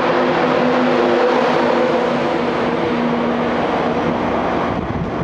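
East Coast InterCity 225 train of Mark 4 coaches passing close by: a loud, steady rush of wheels on rail and moving air, with a hum of steady tones through the first few seconds that then fades. The noise eases a little near the end.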